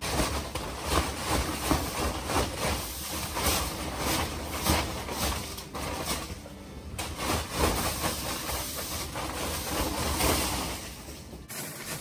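Snow-laden plastic sheeting boat cover being pushed and tapped up from beneath by hand. It rustles with irregular knocks as heavy, wet snow slides and breaks off the outside.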